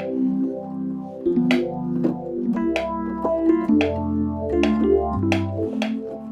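Electric piano preset "Sweetness MW" from Yamaha's ESP plugin for the Montage M, played as a chord progression. Held chords change about every second over a bass line, and each one opens with a bright bell-like attack.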